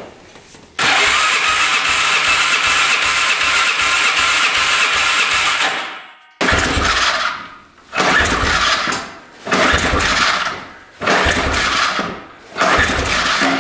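Electric starter cranking a Can-Am Outlander 400's single-cylinder engine with the spark plug out and a compression gauge fitted: a steady whir with even compression pulses about three a second for about five seconds, then five shorter bursts of cranking. This is a compression test on an engine suspected of a stuck piston ring.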